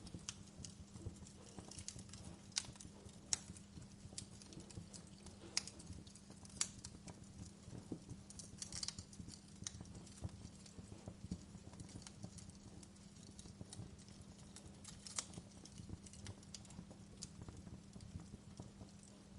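Wood fire crackling in a fireplace: irregular sharp snaps and pops, a few louder than the rest, over a low steady hum.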